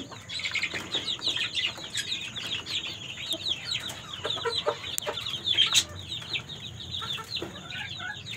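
Chickens clucking, with a steady stream of quick, high chirps.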